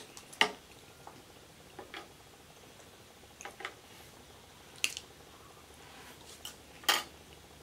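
A few sharp, separate clicks and taps, spread a second or more apart, from a plastic fork knocking against a tray while picking up cheese-covered fries, between quiet eating noises.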